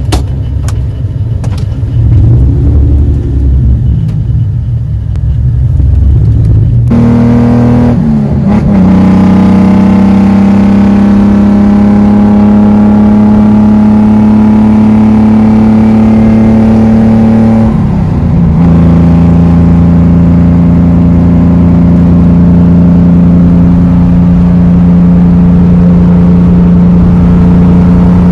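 Datsun 240Z's swapped-in Nissan RB26 straight-six, heard from inside the cabin: uneven revving for the first seven seconds or so, then pulling steadily under load. The pitch climbs slowly and drops at upshifts about 8 and 18 seconds in.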